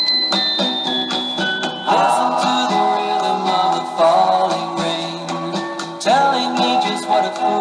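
Instrumental music with a steady sustained accompaniment. A high bell-like line steps downward over the first two seconds, then a sliding melody line enters with a new phrase about every two seconds.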